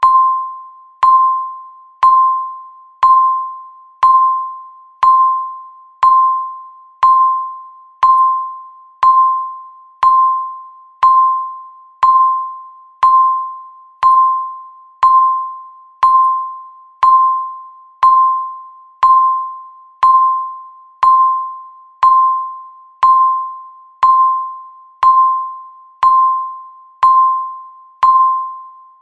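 Electronic countdown-timer beep sounding once a second: a single clear tone that starts sharply and fades away before the next, repeated at an even pace through the count.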